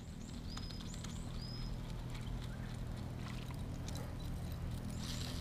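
Birds calling in short whistled notes and quick down-curving chirps, several times, over a steady low hum, with a few light clicks.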